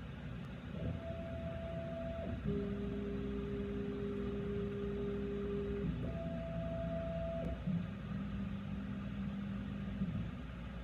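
NestWorks C500 CNC machine's axis motors whining as the axes move through the automatic probing sequence. The whine is a string of steady tones that jump between a higher and a lower pitch, each lasting one to three seconds, over a low hum.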